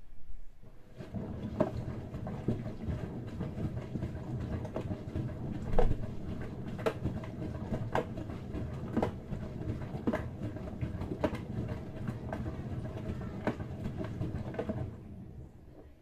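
Brandt washing machine drum turning for about fourteen seconds and then stopping, a rumble with a knock about once a second, the tumbling stroke of a wash cycle.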